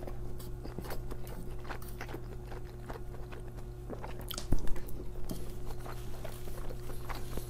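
Close-miked chewing of a mouthful of bacon cheeseburger rice, with many small wet clicks and smacks. There is a sharper click about four and a half seconds in as the next forkful is taken.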